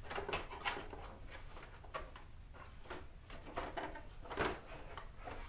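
Plastic motorcycle fairing panel being forced and worked free from the bike: an irregular run of knocks, clicks and scrapes of plastic.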